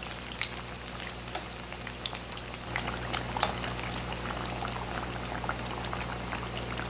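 Rolled saheena slices, dasheen bush leaf rolls in batter, deep-frying in a pan of hot oil: a steady sizzle with many small pops and crackles.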